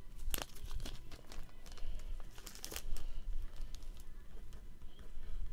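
Plastic trading-card holder and sleeve being handled, crinkling with a scatter of sharp clicks and crackles, the loudest cluster about three seconds in.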